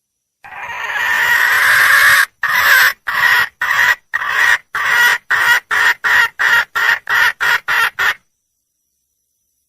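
Junglefowl hen calling for a mate. One long drawn-out note is followed by about a dozen short notes that come quicker and quicker, stopping about eight seconds in.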